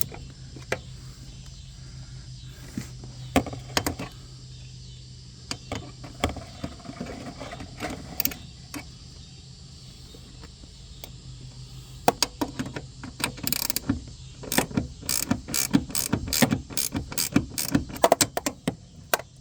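Hand ratchet clicking as door hinge bolts are tightened: scattered clicks at first, then quick runs of ratchet strokes through the last several seconds.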